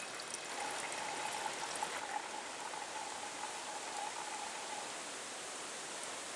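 Thin stream of water trickling from a hydration bladder's drinking tube into a small metal cook pot, steady throughout, with a faint steady tone in the middle part.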